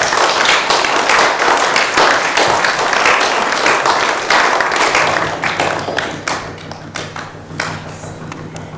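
Audience clapping hands on instruction: many people clapping at once, thinning out and fading over the last few seconds. A low steady hum comes in about five seconds in.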